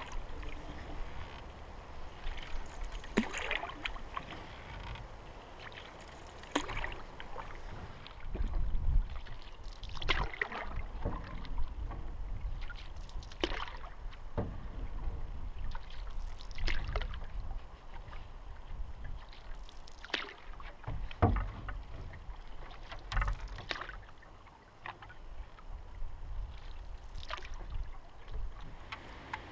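Wooden canoe paddle strokes pulling through calm water, about one stroke every three seconds, each with a short splash and drip.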